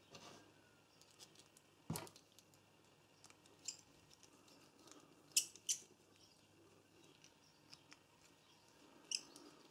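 Small steel parts of a socket ratchet clicking and clinking now and then as they are handled and fitted back into the head during reassembly: a handful of short sharp clicks, two close together about halfway through.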